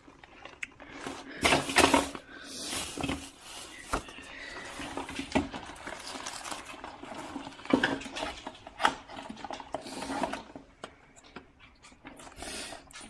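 Rummaging through a cluttered drawer: small objects clattering, knocking and rustling against each other at irregular moments.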